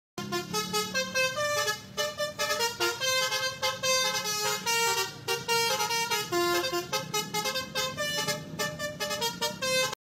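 A quick tune of short, horn-like notes, about four or five a second, stepping up and down in pitch.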